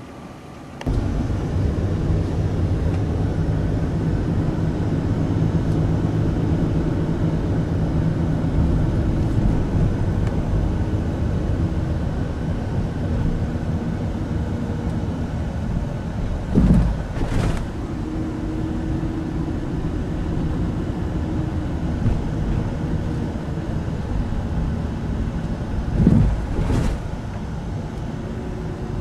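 An engine running steadily, with held low hum tones over a rushing noise, starting abruptly about a second in. Two brief louder swells rise and fall, one just past the middle and one near the end.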